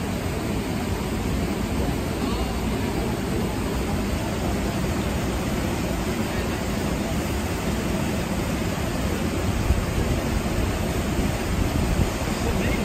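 Steady rushing of a shallow salmon river flowing over rocks, a continuous even noise that is heaviest in the low end.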